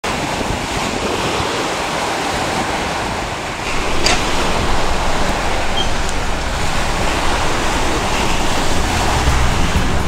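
Waves washing onto a beach, a steady rush of surf with wind on the microphone, growing louder a few seconds in.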